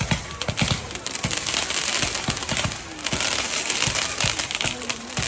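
Fireworks going off: a dense, continuous crackle of many small pops, with scattered low thuds.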